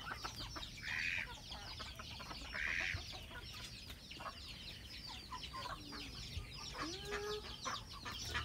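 A flock of free-range chickens clucking and calling, over a continuous chatter of short, high chirps. Two louder calls stand out about one and three seconds in, and a few lower, gliding calls come near the end.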